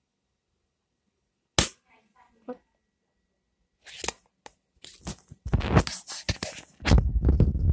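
A single sharp snap, then a phone handled up close, with fingers rubbing and knocking over its microphone in a dense run of rumbles and scrapes.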